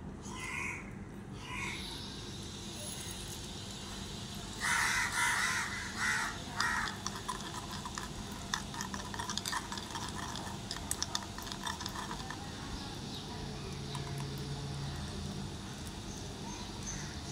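Crows cawing: a cluster of loud calls about five to seven seconds in, followed by scattered light clicks.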